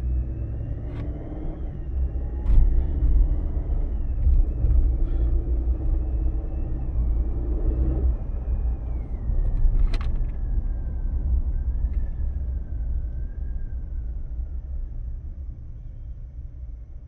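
2022 Chevy Silverado's 2.7 L turbocharged four-cylinder pulling away and accelerating, with a low rumble and an engine note that climbs and then drops about eight seconds in. Over it runs a thin high whining hum that rises and later falls away: the humming noise that others call normal for the turbo engine, though the owner doubts it. A couple of sharp clicks sound along the way.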